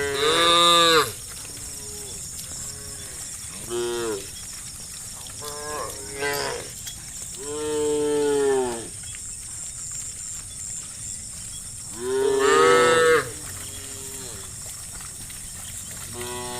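A herd of cows mooing one after another. There are about six or seven calls, some short and some long and drawn out, with the loudest right at the start and about twelve seconds in. A faint steady high-pitched hum runs underneath.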